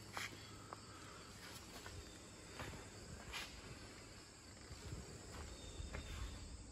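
Quiet room tone with a steady low hum and a few faint, scattered ticks.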